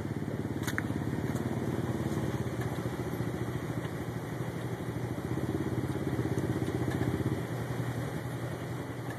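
ATV engine running at low speed with a steady rapid pulse, easing to a lower level about seven and a half seconds in.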